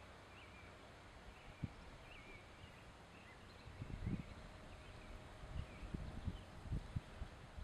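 Faint outdoor ambience: distant birds calling in short, repeated chirps over a steady hiss, with irregular low thumps that are the loudest sounds, bunched about halfway through and again near the end.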